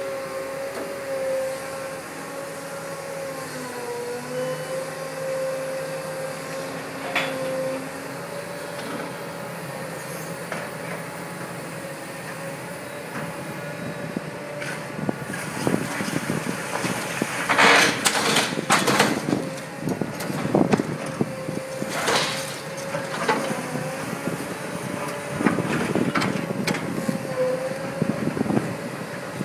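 Hydraulic demolition excavator running with a steady engine and hydraulic hum that dips briefly twice as it takes load. In the second half come irregular crunching knocks and clatters of brick rubble and metal.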